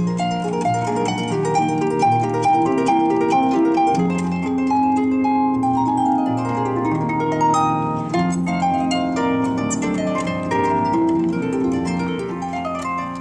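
Solo harp playing a light piece, plucked melody notes over a steady bass line, with the strings ringing on into each other.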